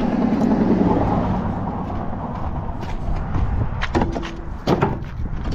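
Road vehicle noise, loudest about a second in and then fading. From about four seconds in come a few sharp clanks of rusty scrap metal landing on a trailer load of scrap, one with a brief metallic ring.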